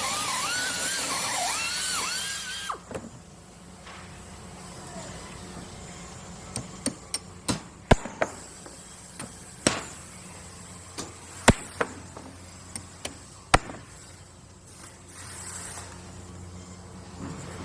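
Power drill whining, its pitch wavering up and down, then stopping about three seconds in. After it, a series of sharp knocks at irregular intervals over a low steady hum.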